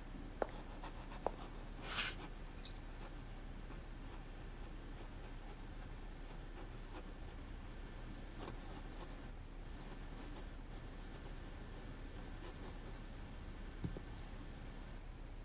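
A pen nib scratching across notebook paper in short strokes as lines are written by hand, stopping about two seconds before the end. A few light clicks in the first second or so.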